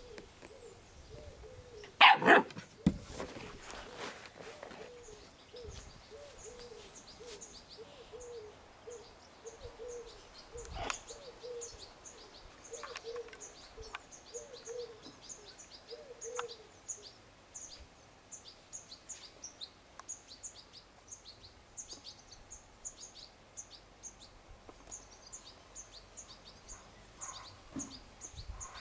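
Scottish Terrier puppy barking loudly once about two seconds in, then making a string of short, low, wavering sounds for the next fourteen seconds or so. Small birds chirp faintly throughout.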